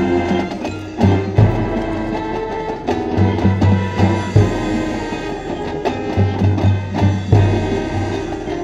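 High school marching band playing: brass over a rhythmic low drum pulse, with front-ensemble percussion and three heavy accented hits about three seconds apart.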